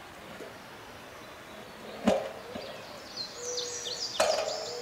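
Satellite dish mount sliding down a metal pipe pole: a sharp clunk about two seconds in and another just after four seconds, with a short ringing tone. Small birds chirp in the background near the end.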